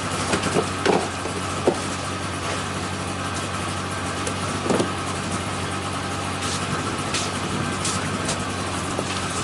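A motor vehicle's engine idling steadily, with a few short knocks in the first two seconds and another about five seconds in.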